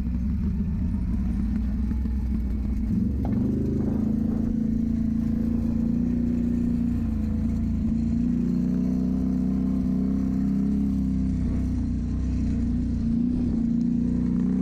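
Can-Am Renegade 800R ATV's V-twin engine running under throttle while riding, its pitch stepping up about three seconds in and then holding high and steady.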